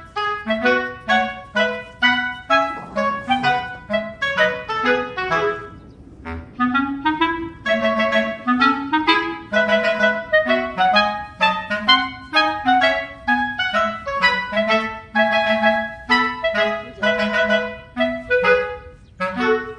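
Background music: an instrumental tune of short, quick notes in a light, bouncy melody.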